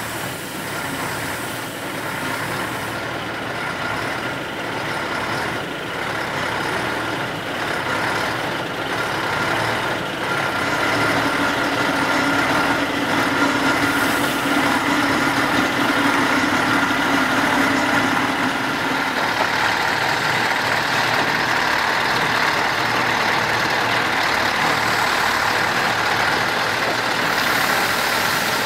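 Tatra 815-7 8x8 truck's diesel engine running as the truck crawls slowly over a concrete articulation course, growing louder about ten seconds in.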